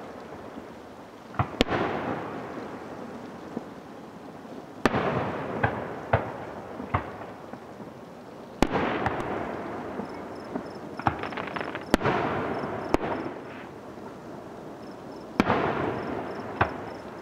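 Aerial fireworks shells bursting overhead: sharp bangs come in clusters every few seconds, and each is followed by a long fading rumble and crackle.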